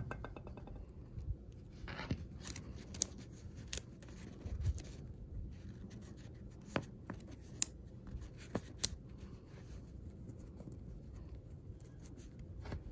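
Magnetic building blocks being handled and fitted together, with scattered sharp clicks as pieces snap into place, a short rattle at the start, and soft rubbing and shuffling in between.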